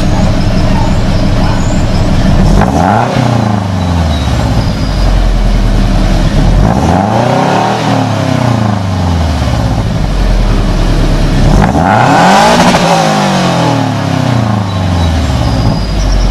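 2015 Scion FR-S's 2.0-litre flat-four engine, fitted with Open Flash headers, idling and being revved three times, each rev climbing and falling back to idle.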